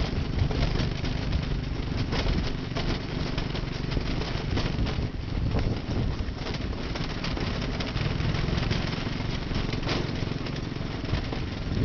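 Go-kart engine running as the kart is driven over rough ground, heard from on board, with frequent short knocks and rattles.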